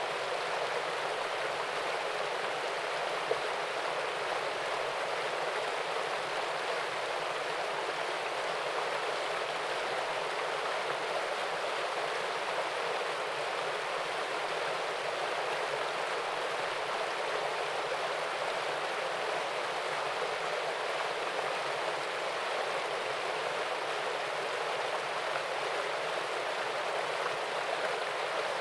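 Small waterfall and stream: a steady, even rush of falling and flowing water.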